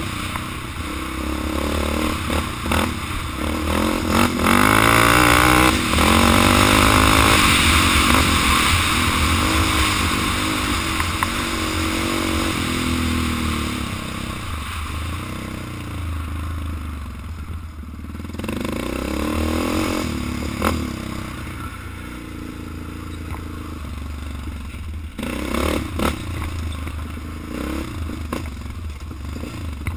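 Sport ATV engine running under throttle along a rough dirt trail, revving up to its loudest about four seconds in and easing off through the middle, with rattles and knocks from the machine over bumps.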